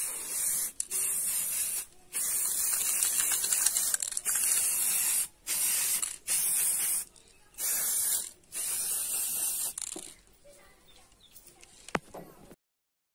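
Aerosol spray-paint can spraying black paint in repeated hissing bursts, about eight in the first ten seconds with short breaks between them, then stopping. A single sharp click comes near the end.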